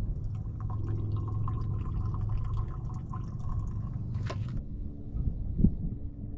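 Coffee trickling and dripping from a pour-over dripper into a metal camp mug, with a sharp click about four seconds in.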